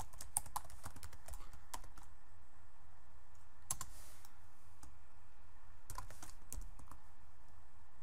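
Keystrokes on a computer keyboard: irregular taps, some in quick little runs, over a steady low hum.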